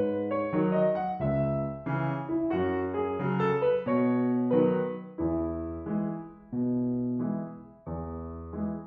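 Background music: a piano playing a gentle melody over chords, the notes changing about every half second.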